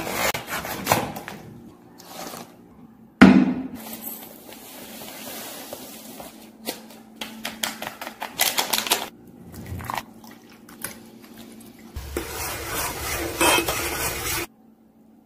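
A sequence of kitchen preparation sounds: a jelly-crystal packet being cut open, a sharp knock about three seconds in, fine crystals poured into a glass bowl with a crackly patter, then a spoon stirring and clinking in a steel pot of boiling jelly mix, which cuts off suddenly near the end.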